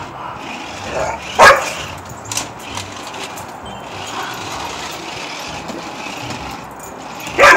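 A dog barks sharply once about one and a half seconds in and several times near the end, over a steady hiss.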